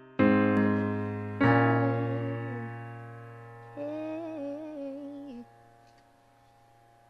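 Intro of a slow ballad: electric piano chords struck twice and left to ring out and fade. Then a short wavering melodic line with vibrato, which stops about five and a half seconds in, leaving a brief pause.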